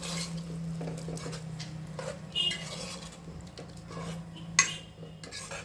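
A spoon stirring curry in a cooking pan, with scattered clinks and scrapes of metal against the pan and one sharper clink near the end, over a steady low hum.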